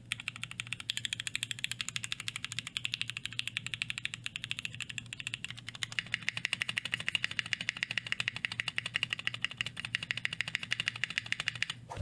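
Fast, continuous typing on a custom 60% mechanical keyboard: an aluminum ANODE 60 with Durock Speed tactile switches on an aluminum plate and PBT keycaps. The keystrokes make a clack that is a little high-pitched, and the typing stops right at the end.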